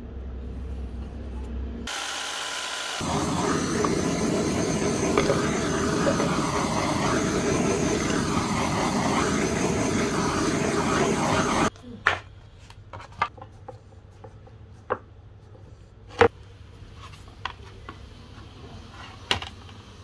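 A power tool runs steadily for about ten seconds and cuts off suddenly. A handful of sharp taps and knocks follow as the workpieces are handled.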